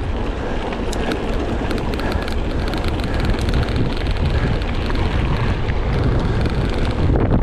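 Heavy wind noise buffeting the microphone of a mountain-bike rider's camera while riding, with scattered clicks and rattles throughout.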